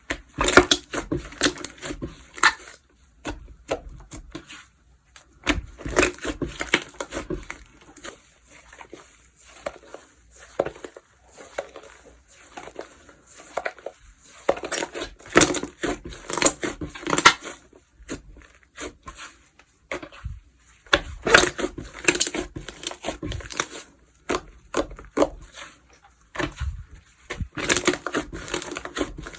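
Slime being squeezed, stretched and pressed by hand, giving clusters of wet clicks, pops and crackles. These come in bursts of a few seconds with quieter gaps between them.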